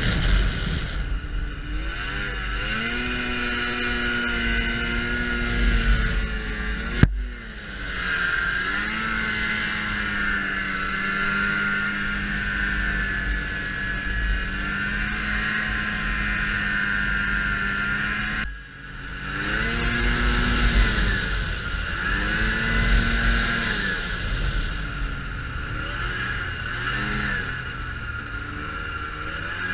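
Ski-Doo Expedition Sport 550F snowmobile's fan-cooled two-stroke twin running under way, its revs rising and falling as the throttle is worked, with a string of quick rev swings in the last third. A sharp click comes about seven seconds in, and wind rumbles on the microphone.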